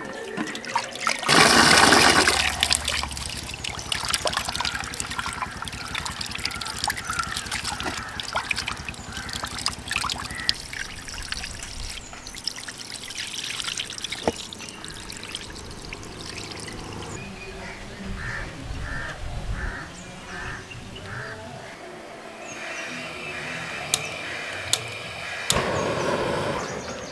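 Water pouring and sloshing as rice is washed by hand in a large aluminium pot, with trickling and dribbling throughout; the loudest pour comes about a second in.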